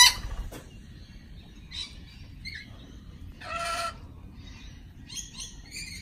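Rainbow lorikeets calling: a few short scattered chirps, with one louder squawk about halfway through.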